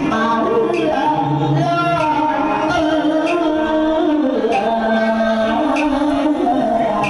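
Hát bội (tuồng) opera singing with its traditional accompaniment: a voice holds long, wavering melodic lines over light, regular percussion strokes.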